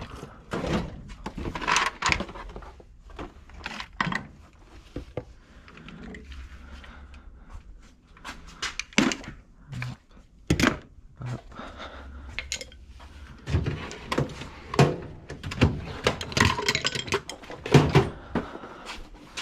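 Hard objects being handled and set down: irregular knocks and clatters, some metallic, coming every second or so with quieter rustling between.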